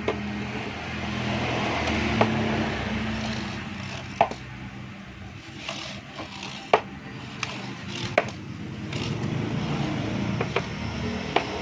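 Sharp knocks and clicks every couple of seconds over a scraping rasp: hand tools and parts being worked on a washing machine during repair.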